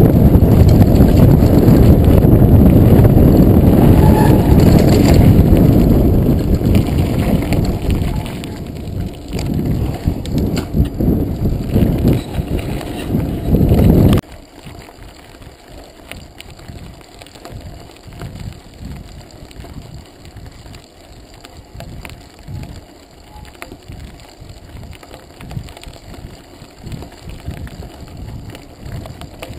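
Mountain bike ridden over a rough dirt and gravel track, heard through a handlebar-mounted GoPro: loud rumbling noise of wind and tyres with the bike rattling, easing after about six seconds. About fourteen seconds in it cuts abruptly to a much quieter crunch of tyres rolling on gravel with small irregular knocks.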